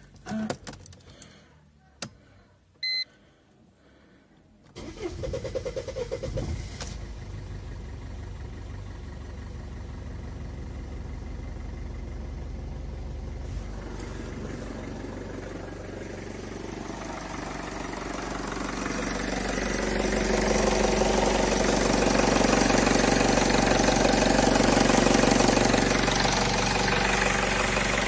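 Mercedes C 220 CDI (W203) 2.2-litre four-cylinder common-rail diesel started for the first time after new copper injector washers were fitted. A short beep comes about three seconds in; then the starter turns briefly, the engine catches and runs steadily at idle. The engine gets louder about two-thirds of the way through.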